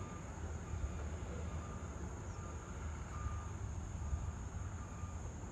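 Evening outdoor ambience: a steady low rumble like distant traffic, a high, even insect drone, and faint short beeping tones that repeat at irregular intervals of roughly half a second.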